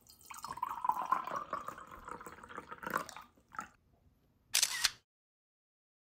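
Liquid poured from a bottle into a glass mug for about three seconds. Then a short click and a camera shutter sound near the end.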